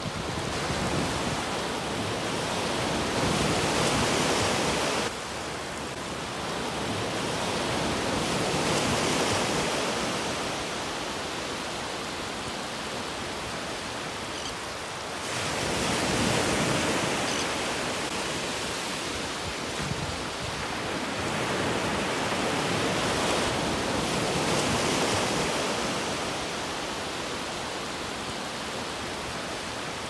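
Small ocean waves breaking and washing up on a sandy beach, the surf swelling and fading every few seconds. The level drops abruptly about five seconds in and rises suddenly again near the middle.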